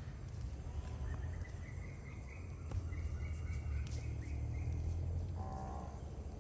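Outdoor background noise: a low steady rumble with a faint, thin high call partway through.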